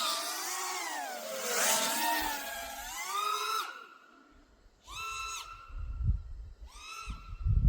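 Brushless motors and propellers of a 5-inch FPV freestyle quadcopter whining, the pitch swinging up and down with throttle for the first few seconds. Then a lull and short throttle blips, with wind buffeting the drone's onboard microphone.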